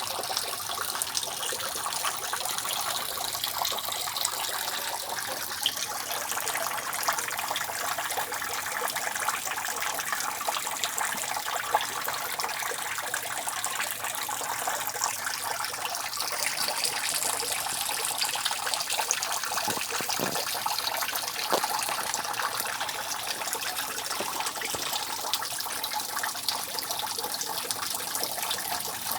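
Rainwater dripping and trickling steadily off a roof, a continuous patter of many small drops, with a few louder drips about twenty seconds in.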